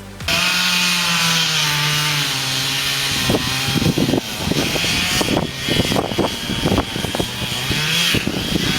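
Stihl 440 Magnum two-stroke chainsaw running under load in a cut. Its pitch sags a little and then holds steady, and from about three seconds in there is a run of sharp cracks and knocks.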